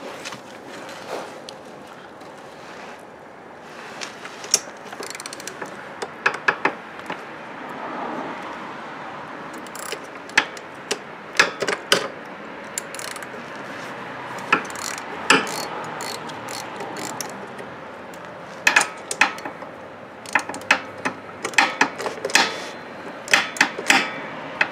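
Swivel-head socket ratchet clicking in short runs of sharp clicks as the exhaust nuts on the scooter's cylinder head are worked loose; the runs come more often near the end.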